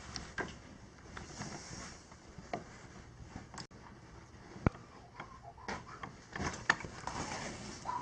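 Upholstery being handled as the inner cushion bag is worked out of a recliner backrest: fabric rustling with scattered light clicks and two sharp knocks, one about halfway through and one near the end.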